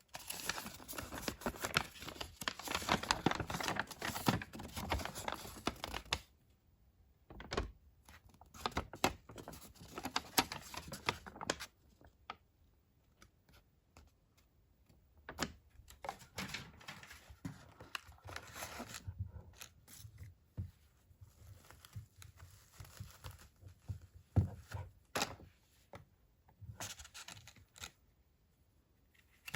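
Doll packaging being torn open and crinkled by hand: about six seconds of continuous tearing and crinkling, then scattered clicks, taps and shorter crinkles with quiet gaps between them.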